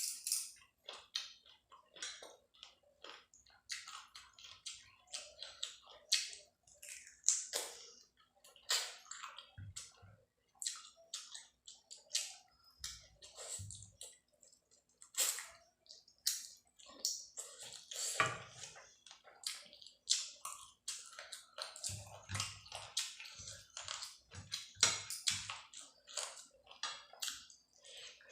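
Close-up eating sounds: wet chewing and smacking of a mouthful of rice and curry, in many short, irregular clicks.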